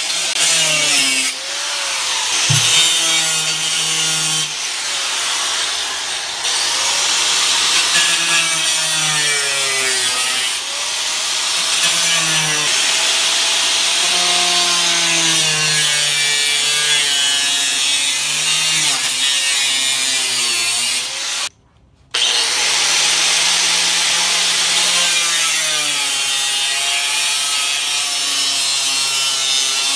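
Power tool cutting out rusted body sheet metal: a steady harsh hiss over a motor whine that wavers up and down in pitch as the load changes. It stops for about half a second two thirds of the way through, then starts again.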